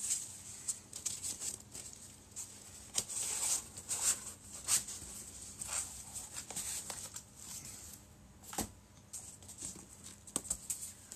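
Cardboard boxes being handled: a small box's lid pushed shut and small boxes lifted and shifted in a large cardboard carton, giving irregular short scrapes, rustles and knocks of cardboard.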